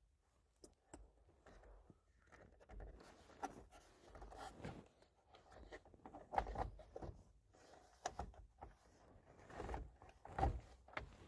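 Quiet, irregular clicks, knocks and rustling of hands working at a car's steering wheel, handling the wiring connectors and plastic trim as the new wheel is hooked up. The two sharpest knocks come about six and ten and a half seconds in.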